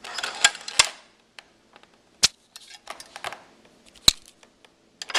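Sharp clicks and knocks from handling a metal-and-wood D-Boys AK-74 airsoft rifle. A handling rustle comes first, then single sharp clicks about two and four seconds in, and a louder knock near the end.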